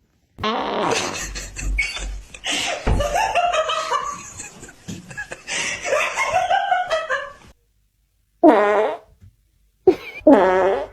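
Farts: several rasping, buzzy breaking-wind sounds, with laughter mixed in during the first seven seconds. Two short pitched farts come near the end.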